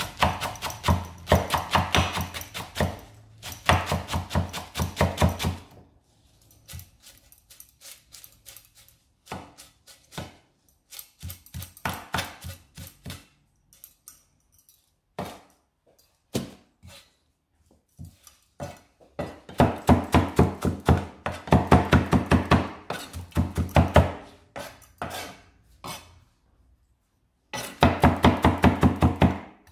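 Kitchen knife rapidly chopping fresh flat-leaf parsley on a wooden chopping block: runs of quick knocks, several a second, with slower, scattered strokes in the middle and a brief pause near the end.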